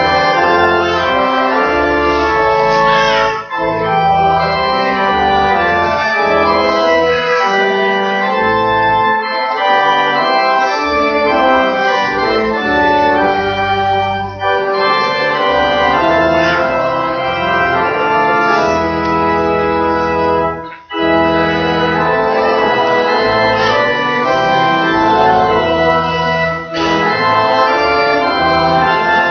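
Church organ playing a hymn in sustained chords, with brief breaks between phrases about three and a half and twenty-one seconds in.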